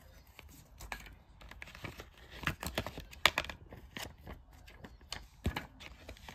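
Stiff paper information cards and a folded booklet being handled: irregular rustles, taps and light clicks of card against card and packaging, the sharpest tap about three seconds in.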